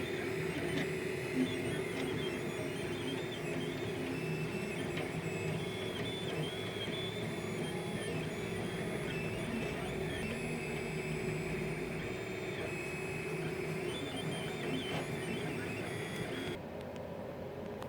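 3D printer printing, its stepper motors whining in short tones that shift in pitch as the print head moves, over a steady mechanical hum. Near the end the sound drops slightly quieter and duller.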